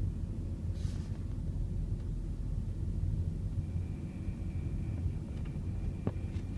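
Toyota ZRR70W (Noah/Voxy) with its engine running near 1,500 rpm: a steady low rumble, with a faint thin high tone coming and going. At this speed the owner hears an abnormal buzzing rattle ("biri-biri").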